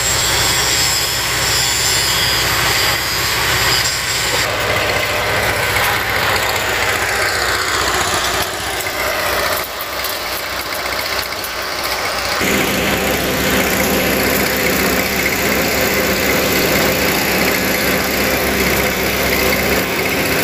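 A heavy machine's engine running steadily at idle, with abrupt changes in its tone about four seconds in and again about twelve seconds in.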